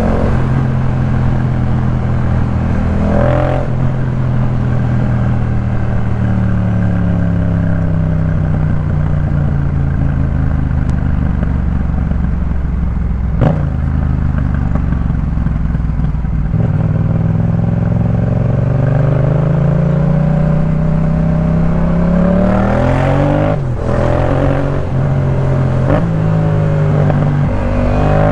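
Yamaha MT-07's parallel-twin engine through a Jeskap K4 full exhaust, under way: the revs climb and fall as the bike accelerates and shifts gear, with a sharp drop about three seconds in and a run of quick rev changes near the end. A single sharp tick about halfway through.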